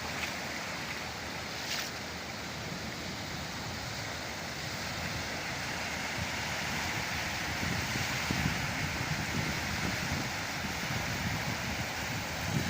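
Sea surf breaking and washing ashore, with wind on the microphone; the rush of water grows louder about halfway through.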